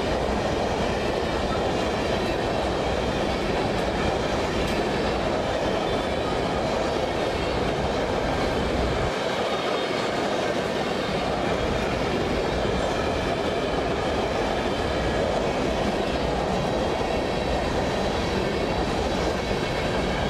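Freight train of coal hopper cars rolling past close by: a steady rumble of steel wheels on the rails that holds level without let-up.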